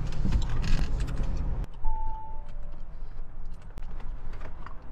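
Steady low rumble of a Lamborghini Urus at rest, heard from inside the cabin. There is rustling handling noise for the first second or so, then one short electronic chime about two seconds in.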